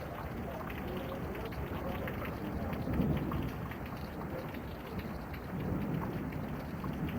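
Steady rain, with many drops pattering on surfaces. A low rumble swells about three seconds in, and again near six seconds.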